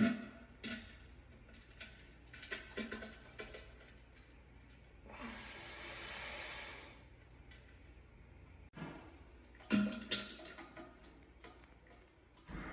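Several farts in a row: short buzzing blasts, the loudest just at the start and about ten seconds in, with sputtering crackles between them. A steady hiss runs for about two seconds in the middle.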